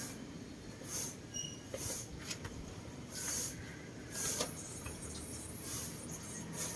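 Short brushing swishes about once a second, the sound of sweeping strokes over the ground, with a few light clicks between them.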